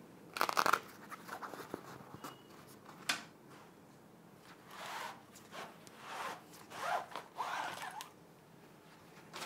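Cloth rod sleeve and packaging being opened and pulled off a new fishing rod. A short loud rasp comes about half a second in, then a few clicks, then several rustling swishes of fabric as the sleeve is worked off.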